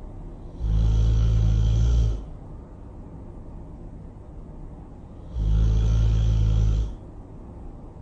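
Loud snoring: two long, low snores about five seconds apart, each lasting about a second and a half.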